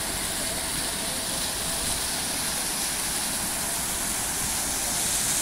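Fountain jets splashing and water spilling down stepped stone basins, a steady rushing hiss of falling water.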